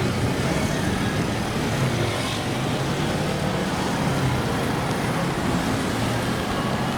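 Steady road traffic noise on a city street, vehicles running past with a constant low engine hum.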